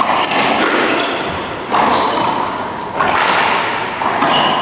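Racquetball rally: the hollow rubber ball cracking off racquets and the court walls, several sharp hits roughly a second apart, each ringing on in the enclosed court's echo.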